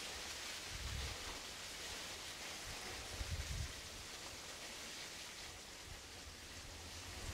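Faint, steady outdoor background hiss, with soft low rumbles about a second in and again a little after three seconds.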